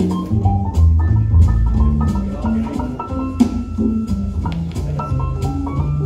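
Recorded music played through Avantgarde Acoustic Trio G3 horn loudspeakers and their bass units, with a moving bass line under a beat of drum and cymbal strikes.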